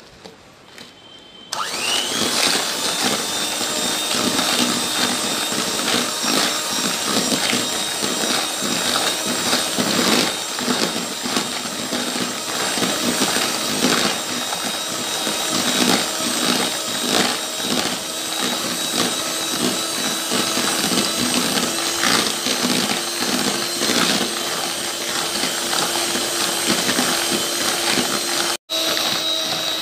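Electric hand mixer switched on about one and a half seconds in. Its motor whine rises quickly and then runs steadily as the beaters churn crushed Oreo biscuits into a thick whipped-cream mixture, with frequent clicks of the beaters against the bowl. There is a brief break near the end.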